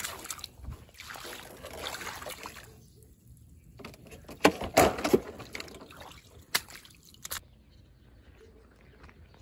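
Footsteps splashing and squelching through shallow puddles on muddy, waterlogged ground, with a cluster of sharp, loud steps about halfway through.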